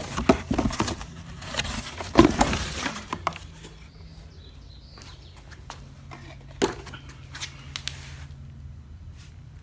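Cardboard box and packaging rustling and scraping as a handheld leaf blower is lifted out, with many sharp clicks and knocks. The rustle dies down after about three seconds, leaving scattered clicks and one sharper knock of the plastic-bodied blower being handled.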